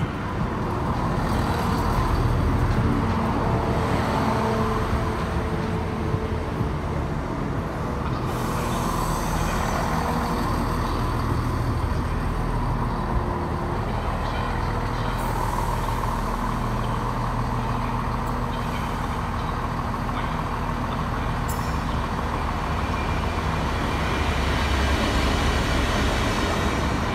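GB Railfreight locomotive's engine running with a steady low drone as it approaches, growing louder near the end, with a few brief hisses of air.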